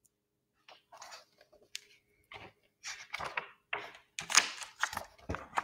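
Paper pages of a hardcover picture book rustling and scraping as the book is handled and a page is turned, in a run of irregular rustles that grow louder toward the end.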